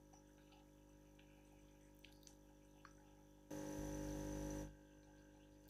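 Near silence: faint room tone, with a steady electrical hum that cuts in about three and a half seconds in and stops abruptly about a second later.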